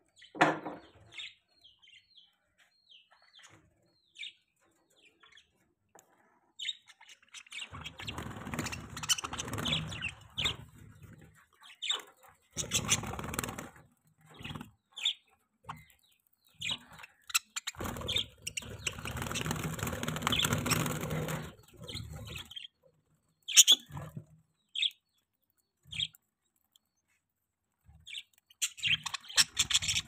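Pet budgerigars chirping in short, scattered high calls. Several louder bursts of rustling noise, each lasting a few seconds, come through the middle of the stretch.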